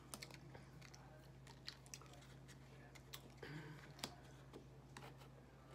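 Faint chewing of nacho tortilla chips: scattered soft crunches and mouth clicks, with a short sound of the eater's voice about three and a half seconds in.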